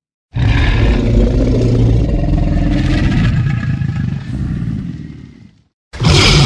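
Tyrannosaurus rex roar sound effect: a loud, deep, rough call lasting about five seconds that fades out, then a second loud call starting just before the end.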